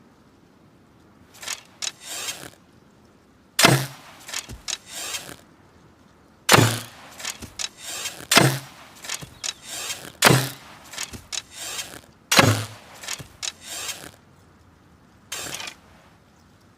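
Hunting bow being shot repeatedly: five sharp snaps with a low thump, about two seconds apart, each followed by a quick cluster of lighter clicks and rattles, with softer clicks before the first shot and near the end.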